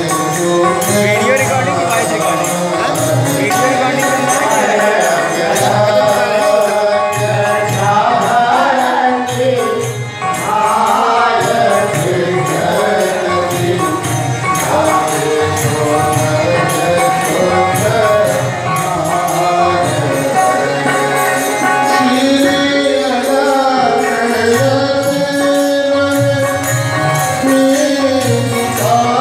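Hindu devotional singing (a bhajan) with instrumental accompaniment: voices over held notes and a steady drum rhythm.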